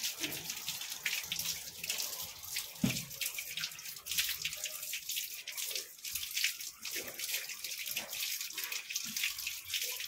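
Water running from a tap and splashing over a handful of keezhanelli herb being rinsed under it, spattering irregularly onto the concrete below. There is a single short low bump about three seconds in.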